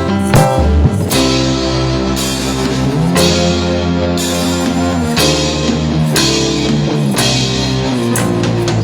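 Dangdut band playing an instrumental passage, with guitar and drum kit.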